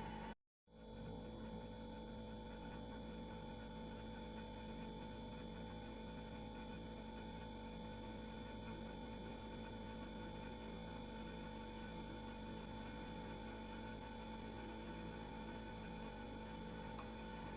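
Household refrigerator running with a steady hum made of several constant tones over a faint hiss. The sound cuts out completely for a split second about half a second in, then carries on unchanged.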